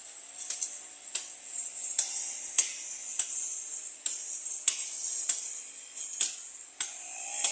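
Background music with a steady beat: sharp, bright percussion hits about every two-thirds of a second over a soft sustained tone.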